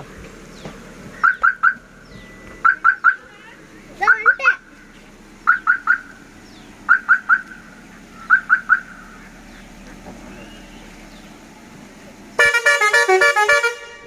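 Roots hexatone musical air horn on a Maruti Suzuki Eeco van playing its preset tones: quick triple beeps repeated about every second and a half, one group with a warbling sweep. Near the end it plays a loud, rapid multi-note tune.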